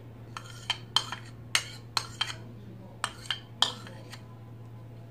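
Metal spoon clinking and scraping against bowls while cream is scraped out of a ceramic bowl into a glass bowl: about nine sharp, irregular clinks over the first three and a half seconds, then they stop.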